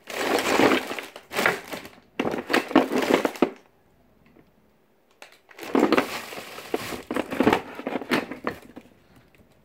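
Close rustling and crinkling of things being handled right by the microphone, in two spells of about three seconds each. The first starts suddenly.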